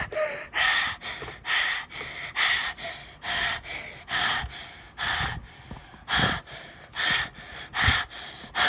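A person breathing loudly and quickly close to the microphone, short heavy breaths in and out about two or three times a second. The breathing is exaggerated on purpose and drowns out the sound of the slime being played with.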